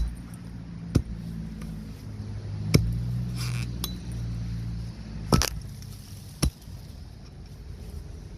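A hand tool chopping at a sawn-up tree stump: five sharp, clinking blows at uneven intervals. A steady low hum runs underneath and swells for a couple of seconds in the middle.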